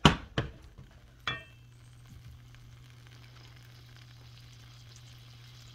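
Seitan sausage frying in oil in a cast iron pan, a faint steady sizzle. A couple of sharp knocks and a ringing clink come in the first second and a half.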